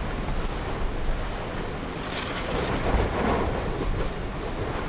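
Erupting Fagradalsfjall volcano and strong wind on the microphone: a steady rushing noise with a deep rumble underneath.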